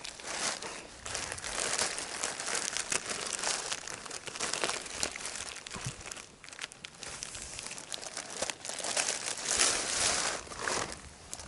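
Continuous crinkling and rustling, louder for a couple of seconds near the end.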